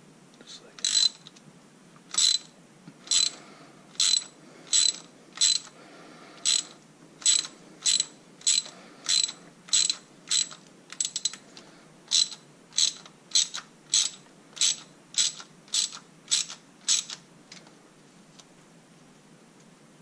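Ratchet wrench clicking as it is swung back and forth to back out the coolant bleeder screw on the engine. It gives one sharp click a little over every half second and stops about three seconds before the end.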